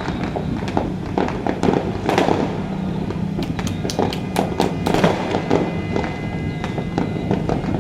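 Fireworks going off in quick succession: many sharp cracks and pops, coming thickest in the middle, over a continuous crackle.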